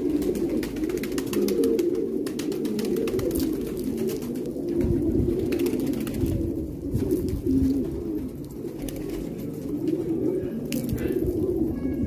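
A flock of fancy pigeons cooing together in a dense, continuous, overlapping murmur, with scattered sharp clicks through it.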